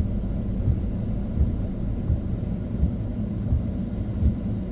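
Steady low rumble of a car driving in the rain, heard from inside the cabin, with a soft low thump about every 0.7 seconds.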